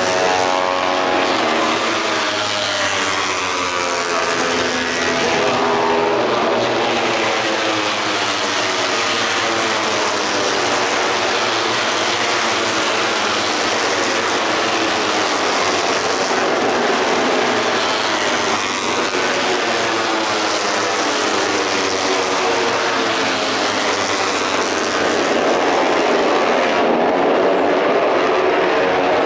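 Grand Prix racing motorcycles running past on the circuit, several engines at once rising and falling in pitch as they pass, loudest near the start and again near the end.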